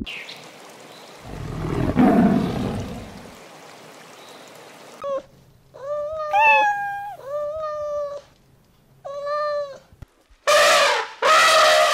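A domestic cat meowing four times, each meow between a short chirp and about a second long, one rising in pitch partway through. Earlier, a low, rough sound swells and fades over the first few seconds. Near the end a rooster starts crowing loudly.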